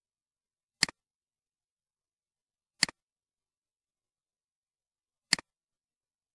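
Computer mouse button clicked three times, a couple of seconds apart. Each click is a sharp press tick followed at once by a softer release tick.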